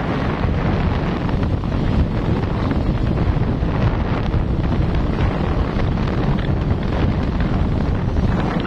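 Wind buffeting the microphone while riding, a steady loud rushing noise heaviest in the low end.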